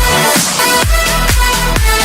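Electronic dance music with a steady, thumping kick-drum beat.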